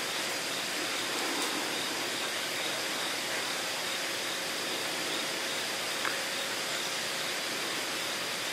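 Steady, even outdoor background hiss with no distinct events, carrying faint steady high tones, and one light tick about six seconds in.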